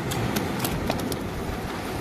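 A freshly landed red porgy flapping on bare rock, its body slapping the stone in a few sharp, irregular taps over a steady background rush.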